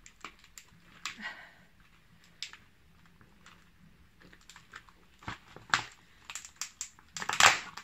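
Fingers pressing and prying a cured resin ornament out of a thin homemade silicone mould on a plastic sheet: scattered small clicks, taps and plastic crinkles, with a louder, longer crinkle near the end.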